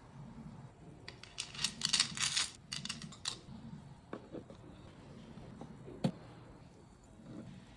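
A quick run of light clicks and rattles of small hard objects, then scattered clicks and one sharp click about six seconds in.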